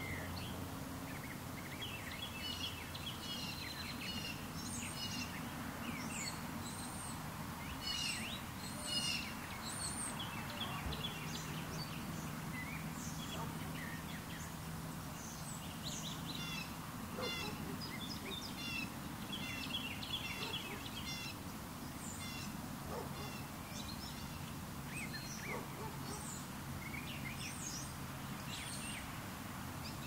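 Small birds chirping in many short, high calls scattered through the whole stretch, over a steady background hiss that comes partly from the camera's automatic gain control. A faint low hum sits beneath.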